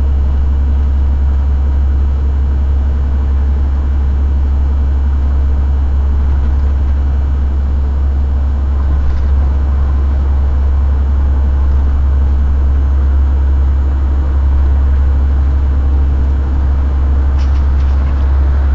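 Steady low drone of engine and road noise inside a heavy vehicle's cab cruising at motorway speed, with a few faint ticks near the end.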